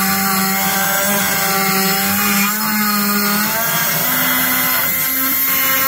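Die grinder running loud and steady with a high whine, grinding drilling burrs off the inside of a freshly drilled suspension shackle hole. Its pitch wavers slightly as it bears on the metal.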